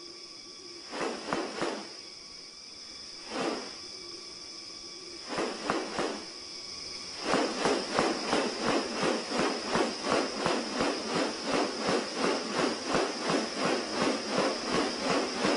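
Steady high-pitched drone of rainforest insects, with a few separate rasping swishes, then from about seven seconds in a loud, regular rasping pulse repeating two to three times a second.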